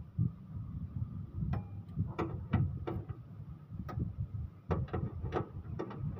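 Sharp metal clicks, about ten at uneven spacing, from a hand wrench working the bolts of an engine's timing-belt cover, over a low rumble.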